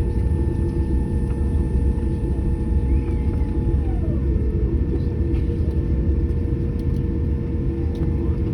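Steady low rumble inside a Boeing 787-8 cabin on the ground after landing, with faint steady whines from the aircraft's engines or air systems. One whine drops in pitch about four seconds in.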